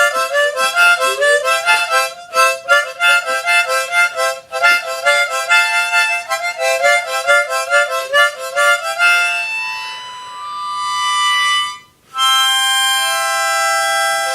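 Harmonica being played: quick runs of notes for about nine seconds, then slower held notes, a brief stop near the end, and a long held chord.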